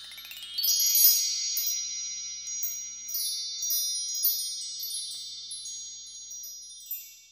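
High, bell-like chime tones struck several times in a row, ringing on and slowly fading out near the end.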